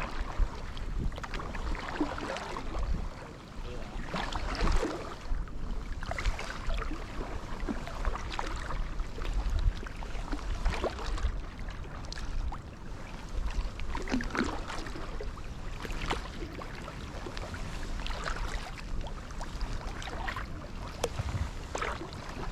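Kayak paddle strokes dipping and splashing in the water, a splash every second or two, over a steady low rumble.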